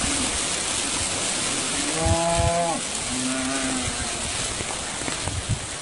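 Cattle being swept along in floodwater, mooing: one long moo about two seconds in, then a shorter, higher one. Both are heard over a steady rushing noise of water and wind.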